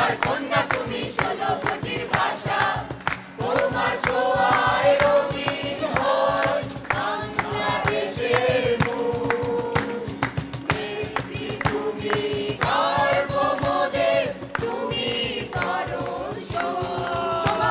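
A mixed group of young men and women singing a song together in chorus, with steady rhythmic hand clapping.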